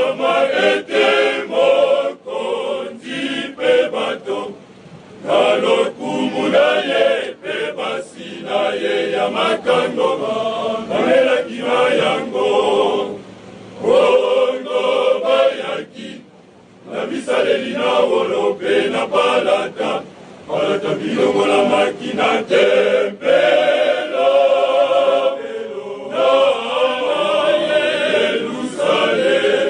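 Male choir singing together under a conductor, phrases broken by a short pause about halfway through.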